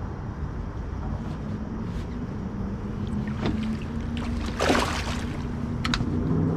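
A flathead catfish splashes at the surface as it is released over the side of a boat, one short splash about four and a half seconds in, with a couple of small clicks after it. Underneath runs a steady low hum with water noise.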